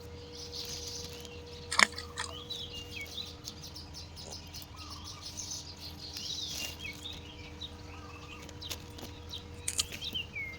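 A bird singing short phrases of quick chirping notes, repeated every few seconds, over a steady faint hum. A few sharp clicks, the loudest about two seconds in.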